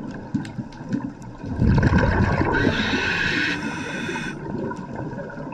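Scuba diver breathing through a regulator underwater: a rush of exhaled bubbles lasting about three seconds, starting about a second and a half in, with a brief hiss in the middle.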